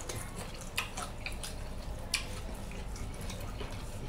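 Wet mouth sounds of someone eating a sauce-covered chicken wing: irregular sharp smacks and sucking clicks as the lips work the meat off the bone.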